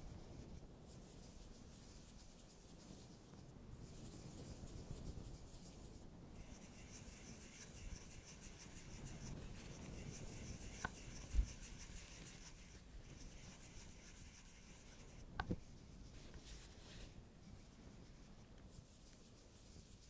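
Fingertips and nails rubbing and scratching on a cardboard eyeshadow palette case as it is handled, with a few soft clicks and one low knock about halfway through.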